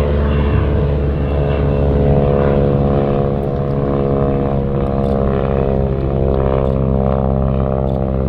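Harvard Mk II's nine-cylinder Pratt & Whitney R-1340 Wasp radial engine and propeller droning at a steady, even note as the trainer flies a low 'dirty pass' with its landing gear down.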